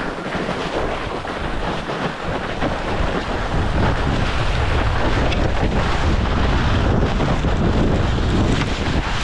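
Wind buffeting the camera microphone along with snow hissing and scraping as a person slides feet-first down a steep snow chute on their back; the wind rumble grows stronger about four seconds in as the slide speeds up.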